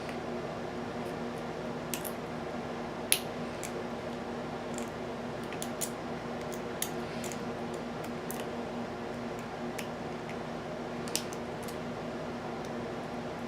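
Irregular small metallic clicks and ticks of a lock pick working the pin stack of an American Series 700 padlock, with a sharper click about three seconds in and another near the end, over a steady low hum.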